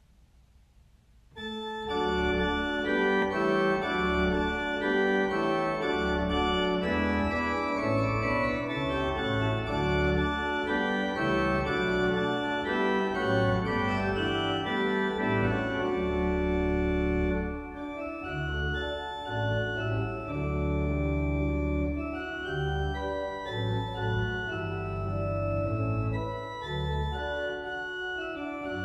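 Organ music played as a prelude to the service: slow sustained chords over a deep pedal bass. It begins about a second and a half in and turns softer a little past halfway.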